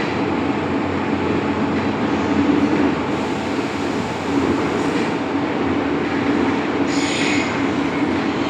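MTR Island Line M-Train electric multiple unit running on the track: steady rumble of wheels and running gear, with a brief high squeal about seven seconds in.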